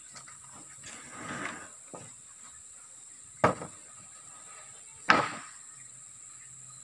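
Sawn wooden planks being laid and shuffled on a stack, knocking against each other. There is a softer scraping shuffle about a second in, then two sharp wooden knocks a little under two seconds apart.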